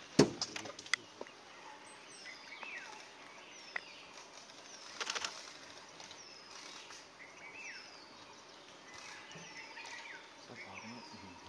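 Forest birds calling with short, downward-sliding chirps repeated every second or so. A sharp click comes just after the start, and a quick run of clicks about five seconds in, from camera shutters firing.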